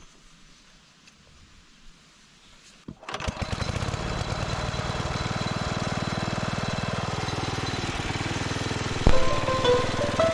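Small air-cooled engine of an antique National Mower Company lawn tractor, rope pull-started: faint for about three seconds, then it starts and runs steadily. Near the end a sharp click, then music comes in over the running engine.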